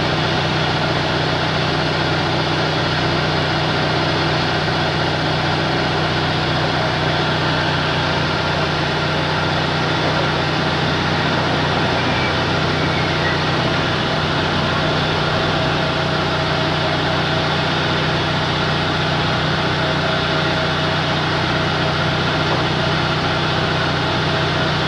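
A vehicle engine idling steadily, with an even, unchanging hum.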